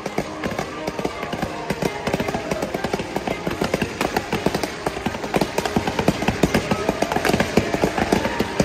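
Fireworks going off in a dense barrage of rapid bangs and crackles, many per second, growing louder toward the end.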